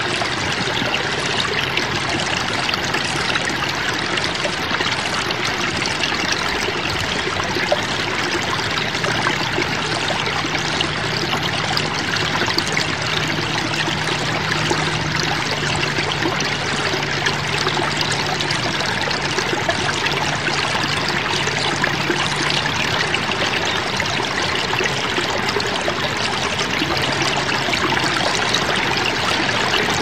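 Stream water lapping and trickling, a continuous, even rush of running water.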